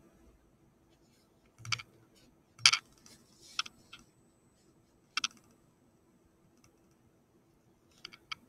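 Scattered short clicks and rustles of handling as a fabric sleep mask is pulled on over the head and settled over the eyes, the loudest about three seconds in, with a small pair of clicks near the end.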